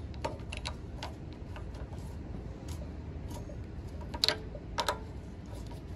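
Light, scattered metal clicks and taps of a nut driver working the 10 mm bolts that hold an aftermarket air-filter adapter on the carburetor, with two sharper clicks about four seconds in.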